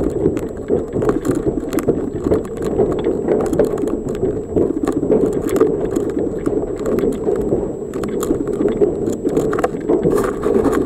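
Hailstones hitting a roof in a heavy hailstorm: a dense, steady clatter of many sharp hits.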